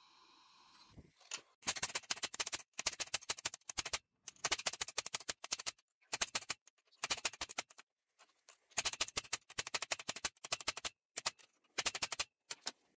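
Rapid hammer blows on a laser-welded mild steel piece clamped in a steel bench vise, coming in quick runs of sharp strikes with short silent gaps between them. The weld is being beaten in an abuse test to try to break it.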